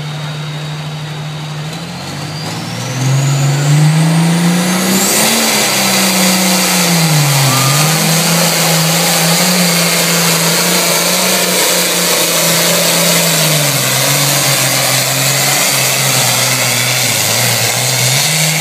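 Diesel pulling tractor's engine going from a steady held rev to full power about three seconds in, while it drags a weight-transfer sled down the pulling track. A high whine rises as it winds up, and the engine pitch then dips and climbs again under load.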